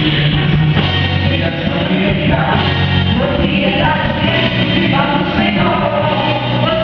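Christian worship song played by a band with singing; the sung vocal line comes in strongly about two seconds in, over guitar.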